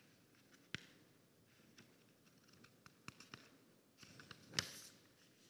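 Near silence: room tone with a few faint, scattered clicks and a brief louder click-and-rustle about four and a half seconds in.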